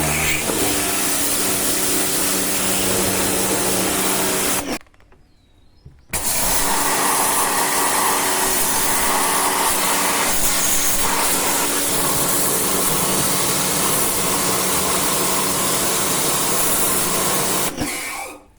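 Pressure washer (jet cleaner) running and spraying: a steady motor hum under loud hissing spray. It cuts off suddenly about five seconds in, starts again a second and a half later, and stops near the end.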